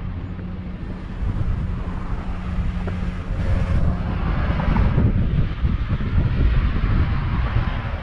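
Wind buffeting the microphone in a gusty low rumble that strengthens after about a second and again near the middle. A car passing on the road alongside adds a tyre hiss that swells and fades around the middle.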